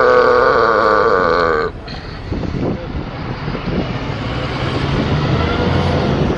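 A long, loud, wavering burp that stops abruptly about a second and a half in, followed by street background noise with a low traffic rumble.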